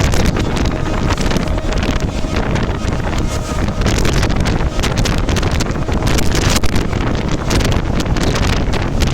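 Heavy wind buffeting on the microphone: a loud, steady rushing noise with a deep rumble and constant crackling gusts.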